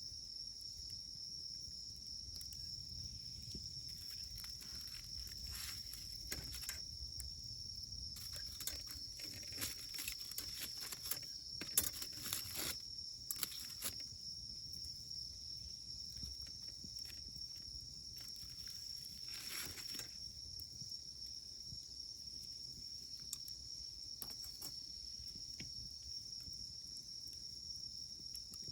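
Wood campfire crackling, with a flurry of sharp pops from about eight to fourteen seconds in and another burst near twenty seconds, over a steady high trill of insects.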